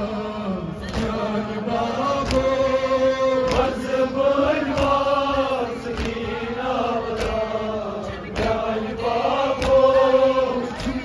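A male reciter chants a Kashmiri noha, a Shia mourning lament, into a microphone through a loudspeaker, in long held notes that waver in pitch. Sharp strikes of chest-beating (matam) land about once every second and a bit.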